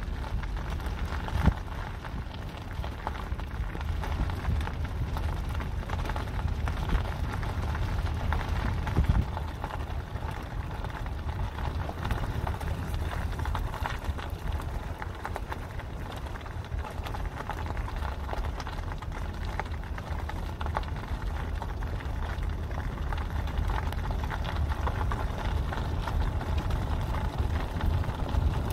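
Car driving slowly, a steady low rumble of engine and tyres heard from inside the cabin, with a few brief knocks in the first ten seconds.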